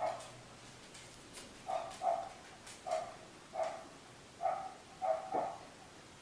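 A dog barking in short single and paired barks, about eight in all, fairly faint.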